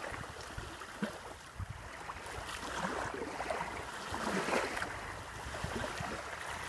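Water sound effect: a steady wash of splashing, lapping water, as of a boat moving through waves.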